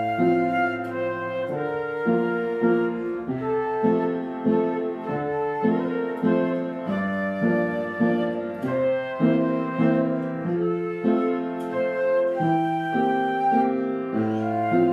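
Flute playing a melody in a steady run of notes, over an accompaniment of lower held notes that change about once a second.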